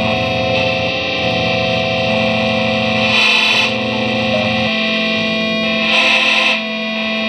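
Live experimental drone music: sustained, distorted tones layered through effects, with two short bursts of hissy high noise about three seconds in and again near six seconds.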